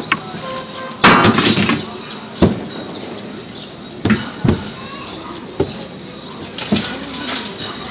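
A metal tray clattering and scraping on a flat steel griddle as a mound of paratha dough is tipped out of it, loudest about a second in. Several sharp knocks and thuds follow as a steel bowl and the dough are handled on the steel surface.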